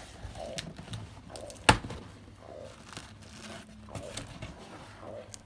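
Packaging being opened by hand: crinkling and tearing with irregular clicks, and one loud sharp snap about two seconds in.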